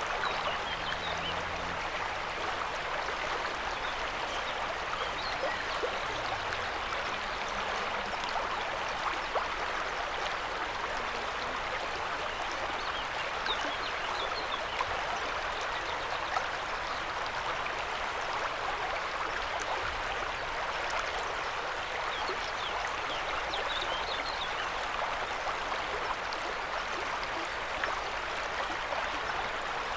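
A river flowing: a steady rush of water with fine babbling and splashing detail.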